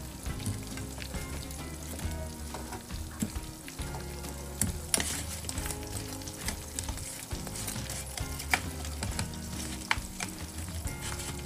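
Battered chicken deep-frying in hot oil: a steady sizzle with frequent sharp pops and crackles.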